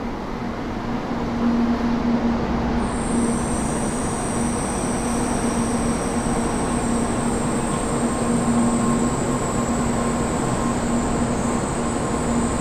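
N700-series Shinkansen bullet train pulling in alongside the platform and slowing, a continuous rumble with a low steady hum. A high whine joins about three seconds in and holds.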